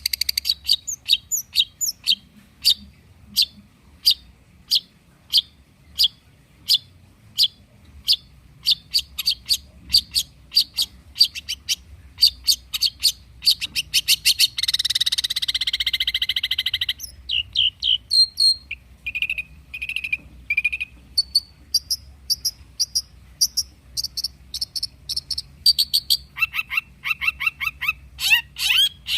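Long-tailed shrike singing: a long run of sharp, short high notes repeated about twice a second, broken by about two seconds of dense harsh chattering in the middle, then more varied notes and quicker runs toward the end.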